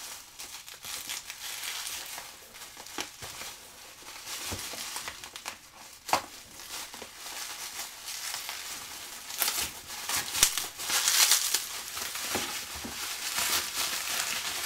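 Plastic bubble wrap crinkling and rustling as it is cut open with a small blade and pulled apart by hand, with a few sharp clicks. It is loudest about ten to eleven seconds in.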